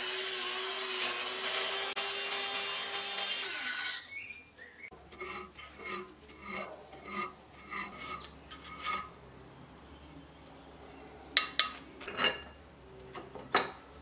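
Handheld rotary tool grinding a steel karambit blade held in a bench vise, a steady high whine that cuts off about four seconds in. Then a hand file stroking the steel about once or twice a second, and a few sharp clicks near the end.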